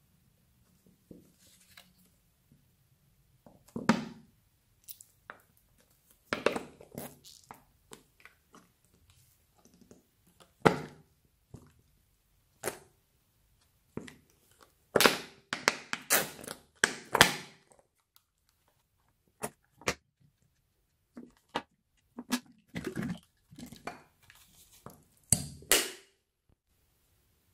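Slime putty squeezed out of a small plastic bottle-shaped container onto a bead-covered slime, with intermittent squelches, pops and sharp crackles of the plastic. The loudest, densest run of sounds comes about halfway through.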